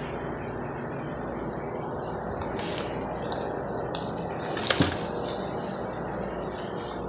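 Steady hiss, with light rustles and clicks from the phone being handled and carried, and a louder sharp double crackle about two-thirds through.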